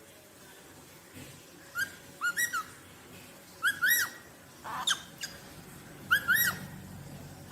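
A rosella parrot whistling: three short phrases of two or three clear notes that rise and fall, about a second and a half to two seconds apart.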